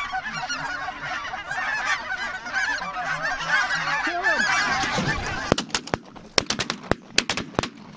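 A large flock of snow geese calling overhead, many overlapping high honks. About five and a half seconds in, a rapid volley of shotgun shots from several guns breaks out as the hunters open fire on the flock.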